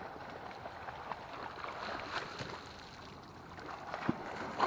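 Water splashing and sloshing as several dogs swim through shallow lake water, with a few sharper splashes near the end.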